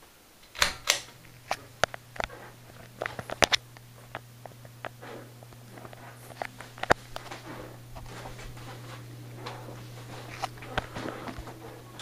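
Hampton Bay Glendale ceiling fan switched on by its pull-chain switch, with a sharp click about half a second in. A steady low motor hum starts at once and the air noise grows gradually as the five blades spin up, under scattered light clicks and ticks.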